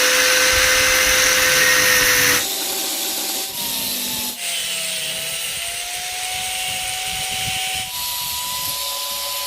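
A handheld power cutting tool runs steadily while it cuts the extra metal points off a ceiling fan shaft. The motor's pitch shifts as the cut loads it, with a scraping hiss over it that is loudest for the first two seconds or so and then eases.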